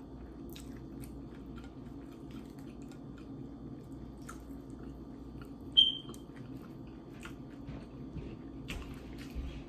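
Close-up eating sounds: quiet chewing with small wet mouth clicks over a steady low hum. One short, sharp, high ping about six seconds in is the loudest sound, and the mouth noises pick up near the end.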